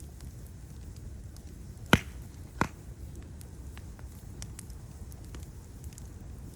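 Fire crackling over a steady low rumble, with scattered faint crackles and two sharp loud pops about two seconds in, just over half a second apart.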